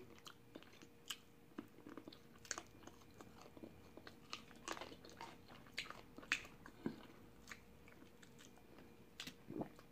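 Faint chewing and biting of fried chicken eaten off the bone by hand, heard as scattered short, irregular mouth smacks and clicks.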